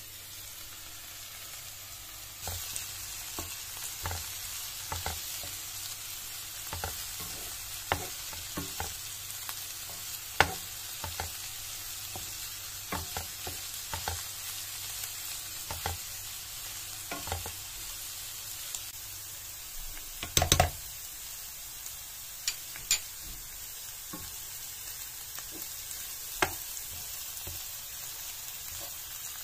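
Chopped leeks sizzling in olive oil in a granite-coated pan, the sizzle getting louder a couple of seconds in. A wooden spoon stirs and scrapes them, knocking against the pan every second or so, with the loudest knocks about twenty seconds in.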